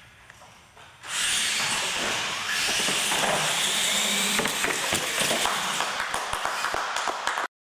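Retro radio-controlled monster trucks launching off the start and racing: electric motors and geartrains whining, with occasional knocks. It starts suddenly about a second in and cuts off abruptly near the end.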